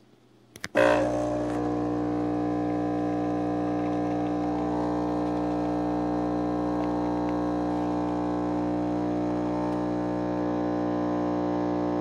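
Mr. Coffee Automatic Dual Shot espresso machine's pump kicks on about a second in. It then runs with a steady, even buzzing hum as it forces hot water through the ground coffee to pull an espresso shot.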